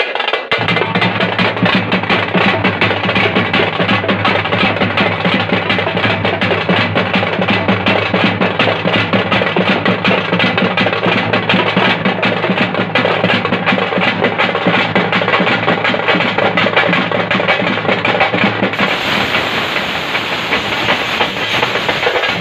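A group of parai frame drums beaten fast and continuously in an ensemble rhythm. A steady low hum runs underneath until near the end.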